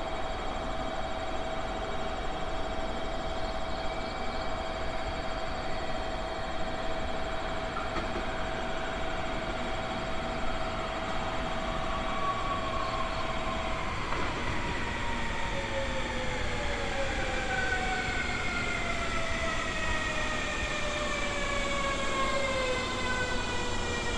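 Electric train slowing as it comes into the station: from about halfway through, its motor whine falls steadily in pitch in several stacked descending tones, over a steady rumble. Before that, a steady hum holds one pitch.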